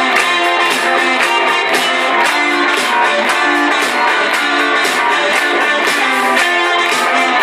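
Rock band playing live: strummed guitars over a steady drum beat.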